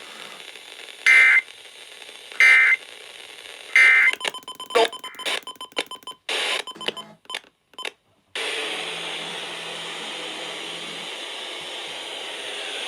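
Three short Emergency Alert System digital data bursts about 1.3 seconds apart, each a fraction of a second long, their brevity typical of the end-of-message code. Then choppy, broken-up radio audio with repeated dropouts, and from about eight seconds in a steady static hiss.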